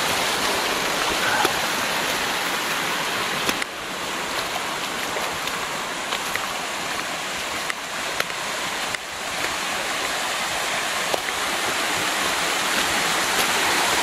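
Shallow creek water cascading over stepped red sandstone ledges: a steady rushing splash.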